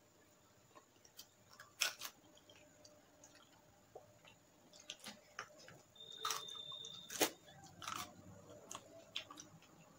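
Close-miked eating with the hands: fingers tearing chicken and working it over a banana leaf, then biting and chewing the meat. It is heard as scattered wet clicks and smacks, the loudest about two seconds in and around seven seconds.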